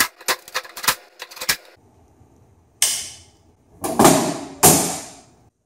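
Cordless drill/driver running a screw into a steel breaker-panel cover, with a quick run of sharp clicks over the first second and a half. Then come three loud rattling hits on the sheet-metal cover, each ringing briefly.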